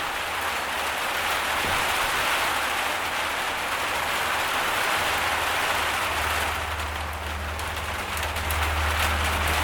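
Heavy rain pouring steadily. About halfway through a low steady rumble comes in underneath and grows.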